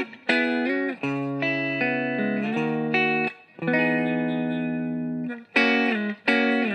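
Background music: guitar playing held chords that change every second or so, with short breaks between phrases.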